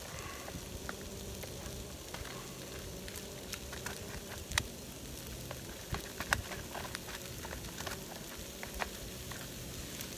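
Chicken frying in a pan on a gas camping stove: a steady sizzle with scattered sharp crackles and pops, the loudest about halfway through, as raw vegetables are tipped into the hot oil.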